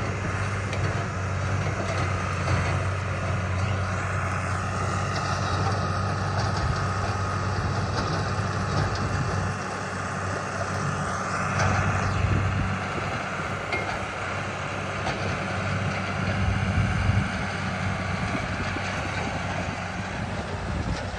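John Deere tractor's engine running steadily under load while bush hogging, with the rotary cutter's rushing noise over the engine hum.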